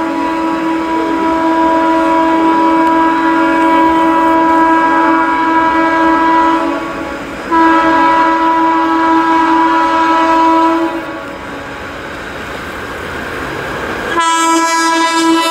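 Indian Railways electric locomotive horn blowing long blasts as an express train approaches: one blast of about seven seconds, a brief break, another of about three and a half seconds, then a few seconds of the train's running noise without the horn, and the horn again near the end.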